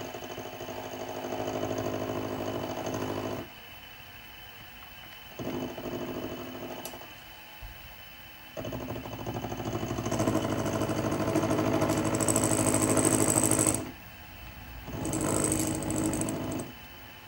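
Small bench milling machine's end mill cutting into a metal part in four separate passes of a few seconds each, each starting and stopping sharply, the longest and loudest about two thirds of the way through.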